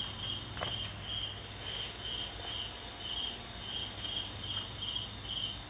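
A cricket chirping steadily: short, high, pulsed chirps repeated about two to three times a second. A faint tap sounds about half a second in.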